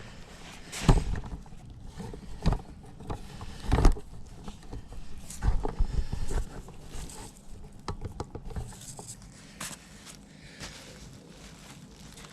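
Irregular knocks, clunks and light scraping from hands working on a cylinder lawnmower's metal parts as its blade settings are adjusted, the heaviest knocks in the first half and smaller clicks later.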